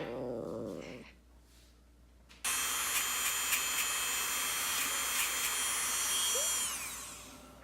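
A short whining note from a shih tzu, then a couple of seconds later an electric appliance motor switches on abruptly with a high whine. It runs steadily, then falls in pitch and winds down near the end after being switched off.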